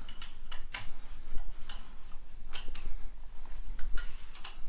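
Irregular sharp metallic clicks and clinks from hand tools working the engine-to-gearbox bolts as the last gap between the tractor's engine and gearbox is drawn closed, with a low steady hum beneath.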